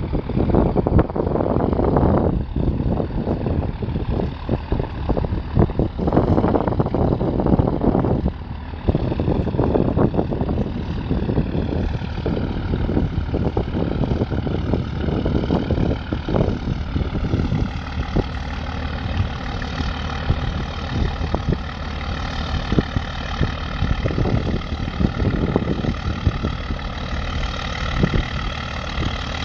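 A boat engine running steadily, heard from on board. Irregular low rumbling gusts fill the first half, and a faint wavering whine comes in over the second half.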